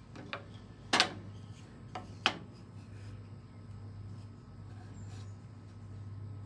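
Mitered plywood picture-frame pieces knocked and set down on a table saw's metal top: four sharp knocks in the first two and a half seconds, the loudest about a second in, over a steady low hum.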